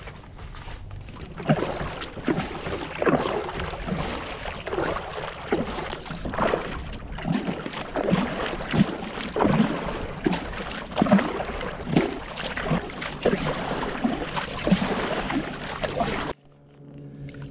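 Kayak paddle strokes: the blade dipping and splashing into the water in a steady rhythm of about one stroke every three-quarters of a second, stopping suddenly near the end.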